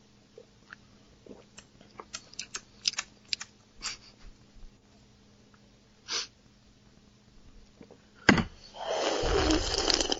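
Close-miked mouth and breath sounds: a run of small wet clicks and smacks, a short breathy puff, then a sharp burst and a loud breathy vocal outburst near the end.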